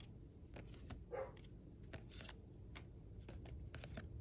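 Trading cards being handled and flipped through by hand: faint, irregular soft clicks and slides of card on card, with one brief louder sound about a second in.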